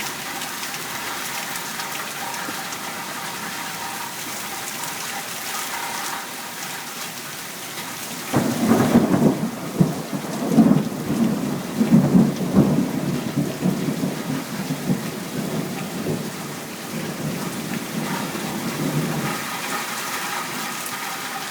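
Thunderstorm: steady rain falling, with a long roll of thunder that starts about a third of the way in, is loudest in the middle, and rumbles away toward the end.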